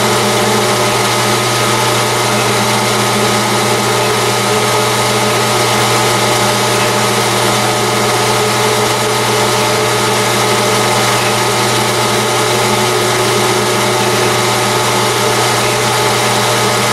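Metal lathe running steadily at speed, a titanium tube spinning in its chuck: an even motor-and-gear hum with a thin steady whine above it.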